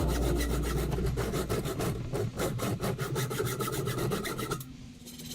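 Hand tool rasping back and forth on metal conduit while pieces are cut to fit, with about four even strokes a second. The strokes stop suddenly near the end.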